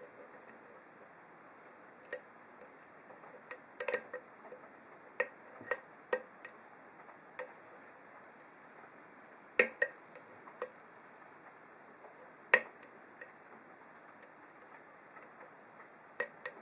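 Small sharp metallic clicks of a deep-hook lock pick and wire tension wrench working the pins of an ASSA SCD 7-pin oval cylinder in a hardened steel padlock. About a dozen scattered, irregular clicks, the two loudest about nine and a half and twelve and a half seconds in.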